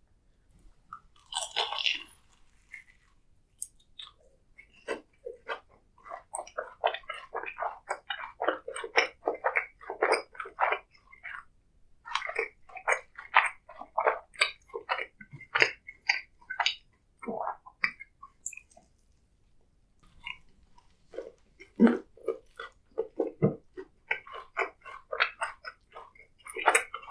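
Close-miked chewing and biting of snack food: many quick, crisp mouth clicks in two long runs, with a brief noisy burst about a second and a half in.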